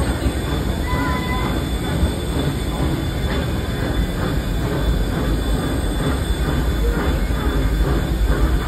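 Train running along the track, heard from a riding car: a steady rumble with wheels clattering on the rails. A brief wheel squeal comes about a second in.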